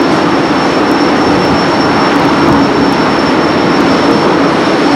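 Steady loud roar of wind and rough sea rushing along the side of a ship under way, with a thin high steady whine running through it.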